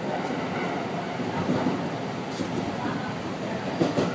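Kintetsu 1230 series electric train running at speed, heard from inside the car: a steady rumble of wheels on rail with running noise. Two short sharp clicks come about two and a half seconds in and just before the end, the second the loudest.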